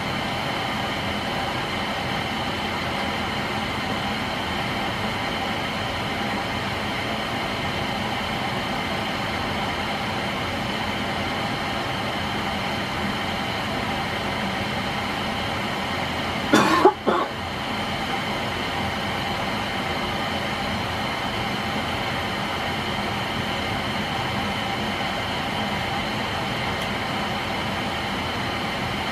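NuTone Verandah II Deluxe 52-inch ceiling fan running steadily on medium speed: an even motor hum and air rush with faint held tones. A brief loud sound breaks in about halfway through.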